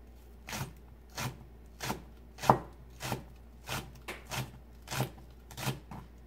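Kitchen knife slicing a Korean leek (green onion) into thin rounds, the blade knocking on the cutting board about once every 0.6 seconds in a steady rhythm.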